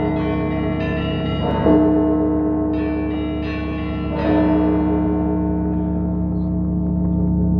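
Russian Orthodox church bells ringing. A big bell is struck twice, about two and a half seconds apart, with smaller bells chiming between the strokes. The small bells die away in the second half, leaving the deep bells humming on.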